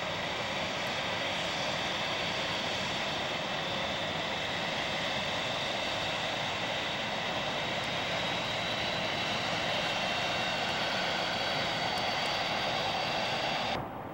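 The four Pratt & Whitney JT3D turbofans of a Douglas DC-8-63 jet airliner running with a steady roar and a high whine as it rolls along the runway after landing. The sound cuts off suddenly near the end.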